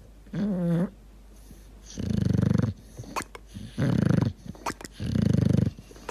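Sleeping dog snoring: four fluttering snores about a second and a half apart, with a short wavering whine about half a second in.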